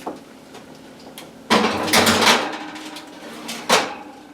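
Baking sheet going into an oven: a scraping rattle about a second and a half in, then a sharp knock as the oven door shuts near the end.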